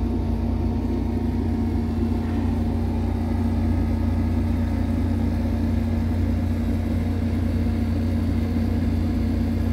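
Steady low mechanical hum with a constant pitch, unchanging throughout.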